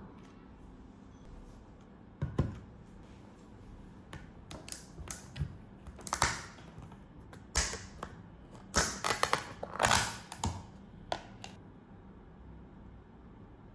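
Irregular light clicks, taps and short rustles of small objects being handled, clustered from about two seconds in until near the end, the loudest around ten seconds in.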